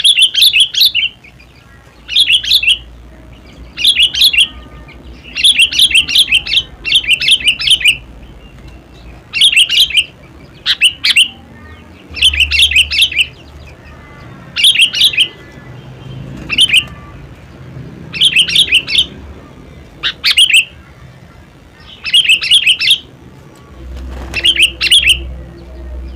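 Sooty-headed bulbul singing: short phrases of quick, clear notes, repeated every second or two.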